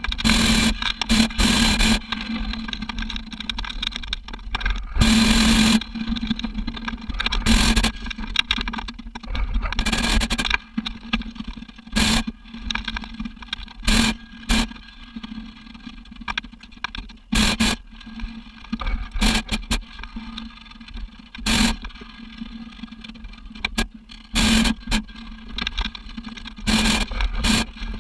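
Hot air balloon propane burner fired in repeated short blasts, about a dozen, each lasting from a fraction of a second to about a second and irregularly spaced, over a steady low hum. These are short pulses of heat to hold altitude while flying low.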